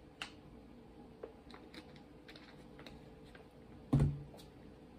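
Faint clicks and crackles from drinking out of a plastic water bottle, then a single thump about four seconds in as the bottle is set down on the table.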